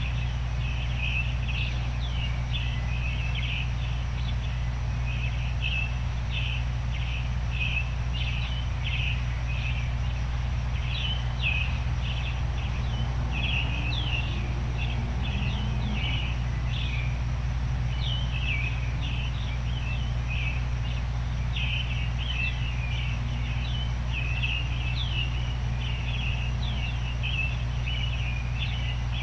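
Small birds chirping in a dawn chorus, quick high chirps several a second throughout, over a steady low noise bed.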